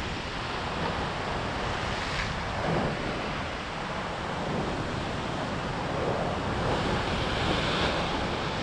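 Ocean swell surging and washing against a rock ledge, swelling and easing in waves about three seconds in and again later.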